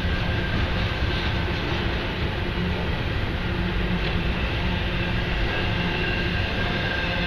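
Union Pacific freight train rolling past, a steady loud noise of wheels on the rails with no let-up, and faint high steady tones over it.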